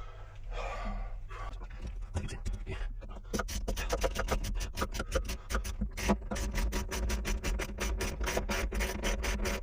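Rapid, somewhat irregular metallic clicking and scraping starting about three seconds in, as a spanner works a threaded pipe fitting tight. Under it runs a steady low machinery hum.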